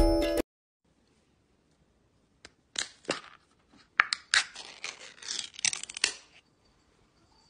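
A small pull-tab food tin being opened and handled: a string of sharp clicks and short rasping, crackling scrapes from about two and a half seconds in to about six seconds.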